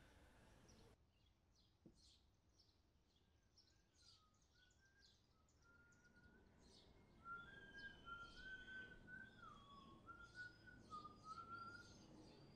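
Faint birdsong: many short high chirps, joined from about four seconds in by a whistled song of held notes stepping up and down in pitch, louder in the second half.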